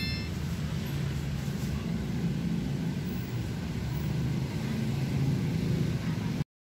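Steady low background rumble with no clear single source, cutting off abruptly near the end.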